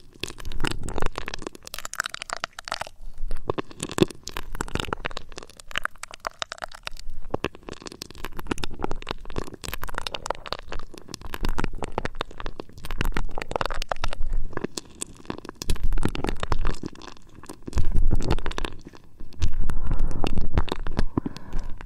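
Close-miked ASMR scratching and rubbing right on the microphone, as in ear-cleaning ASMR: dense crackling and clicking with deep rumbling swells, in uneven waves.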